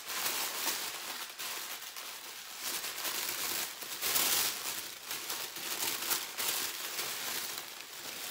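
Holiday gift-wrap paper crinkling and rustling as a soft gift is pulled open by hand, in irregular spurts, loudest about four seconds in.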